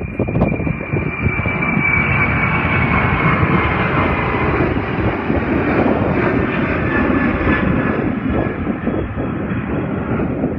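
Boeing 767-300 freighter's twin General Electric CF6 turbofans at takeoff power: a loud, steady jet roar with a high fan whine that slides down in pitch over the first few seconds as the aircraft passes.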